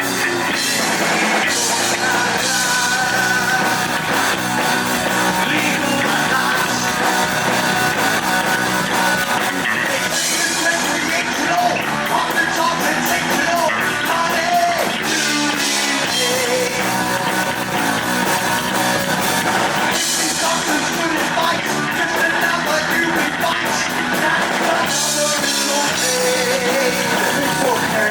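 Heavy metal band playing live and loud, drum kit driving, with singing over the band.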